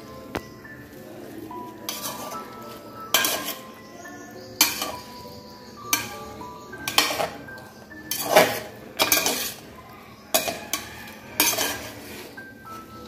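Steel spatula scraping and clinking against the inside of an aluminium pressure cooker while stirring vegetables, a stroke every second or so.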